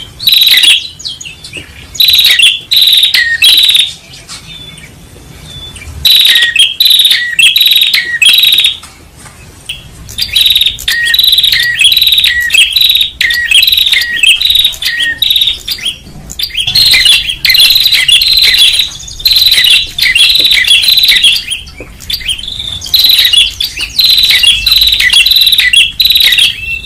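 Prenjak (tailorbird) calling loudly: rapid trains of sharp, high repeated notes, in runs of one to several seconds broken by short pauses.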